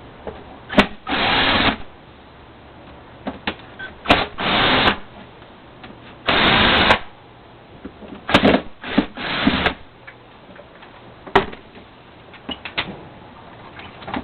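Power drill backing out screws from a plastic vacuum-cleaner housing: five short runs of the motor spread over about ten seconds, with sharp clicks of handling between them.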